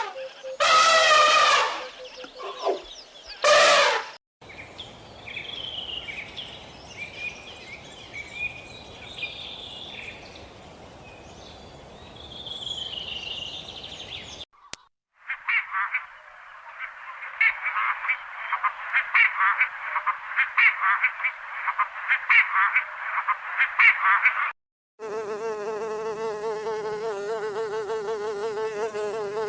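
A run of separate animal recordings cut together: loud pitched calls for the first few seconds, then scattered chirps over a hiss, then a dense chorus of rapid clicks. Near the end comes a steady insect buzz whose pitch wavers slightly.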